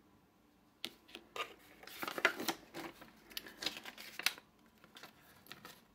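Crisp rustling and crinkling of a folded paper leaflet as it is taken from a game box and handled, with light clicks and taps. It starts about a second in and dies down near the end.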